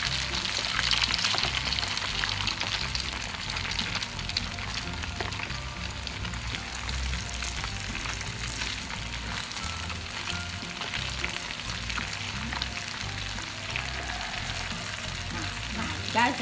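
Breadcrumb-coated king oyster mushroom pieces deep-frying in hot oil on their second fry: a steady sizzle full of small crackles, a little louder in the first couple of seconds.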